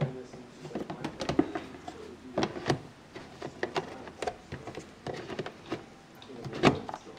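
Clear plastic storage boxes being handled by hand, giving irregular knocks and clicks, the loudest near the end.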